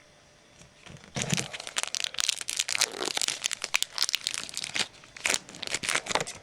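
A trading-card pack's foil wrapper being torn open and crumpled. Dense, irregular crinkling and crackling starts about a second in and runs until just before the end.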